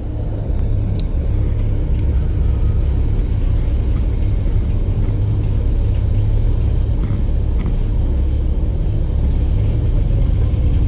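Steady, loud low rumble of wind buffeting the microphone, with a few faint small ticks.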